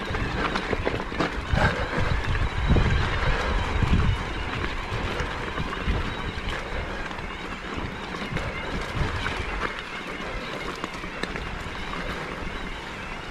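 Mountain bike moving over a wet, rough trail: tyres on mud and stones with an uneven rumble, frequent knocks and rattles from the bike, and wind on the microphone.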